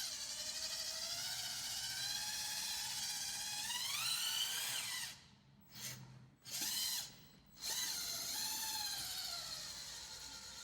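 Battery-powered electric drive motor of a radio-controlled MAGOM-converted Bruder Scania 8x8 dump truck whining as it drives slowly, its pitch rising and falling with the throttle. It cuts out twice briefly around the middle, then resumes.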